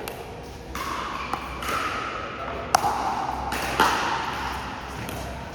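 Pickleball paddles hitting the plastic ball in a rally: a few sharp pocks, the two loudest about a second apart in the middle, over a steady background din.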